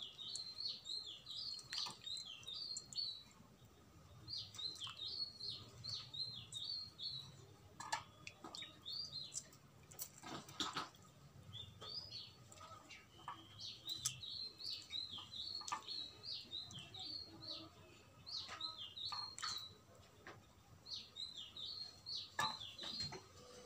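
Small birds chirping in quick twittering runs a second or two long, repeated throughout, with a few soft clicks in between.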